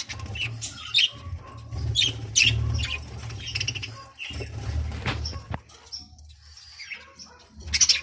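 Budgerigar chirping: short high chirps every second or so over a low steady rumble, with a louder burst of noise near the end.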